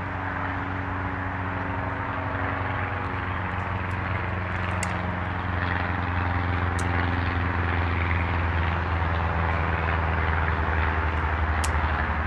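Steady engine drone with a low hum, slowly growing louder, with a few faint clicks.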